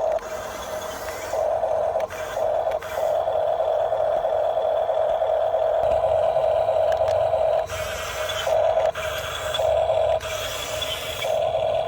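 Small electric motor and gearbox of a radio-controlled model construction vehicle whining at a steady pitch, with brief dips and surges every second or two.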